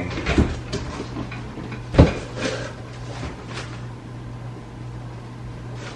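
A cardboard shipping box being opened by hand, its flaps pulled back with cardboard scraping and rustling, and one sharp thump about two seconds in.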